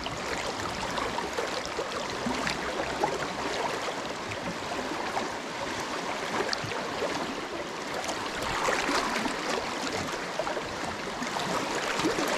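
Fast, riffled creek water running steadily, a constant rushing babble with small splashy ticks.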